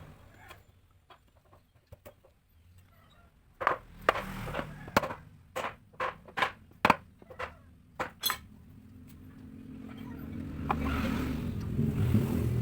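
About ten sharp metallic clinks and knocks in quick succession, then a motorcycle engine running, its low hum swelling over the last few seconds.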